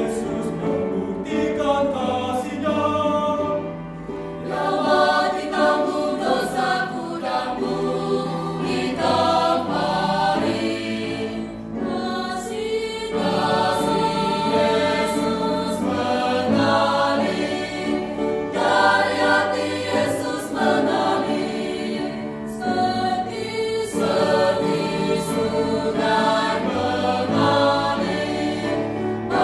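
Mixed choir of women's and men's voices singing a Christian praise song.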